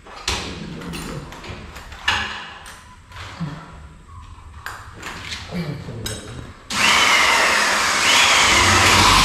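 A few knocks and taps, then about two-thirds of the way in a power drill starts up loud and keeps running, driving screws into the door frame, its whine rising and falling in pitch as it works.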